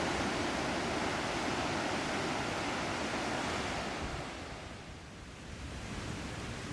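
Sea surf washing in a steady rush, with wind buffeting the microphone. The wash swells, then falls away about four seconds in.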